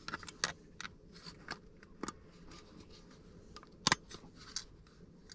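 Small clicks and taps of a Willys Jeep headlight's lens, rim and retaining clips being handled during a repair, with one sharper click about four seconds in.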